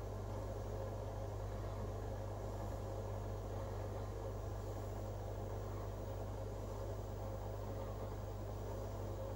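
Steady low hum of an aquarium's electric pump or filter motor, with a faint even hiss and no change in level.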